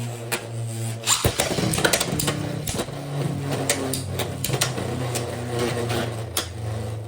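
Two Beyblade X spinning tops whirring steadily in a stadium, with many sharp clacks and knocks as they collide, the hardest about a second in.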